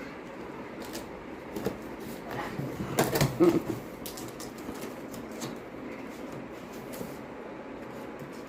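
Scattered knocks and clicks of things being handled, with a louder clatter of knocks about three seconds in.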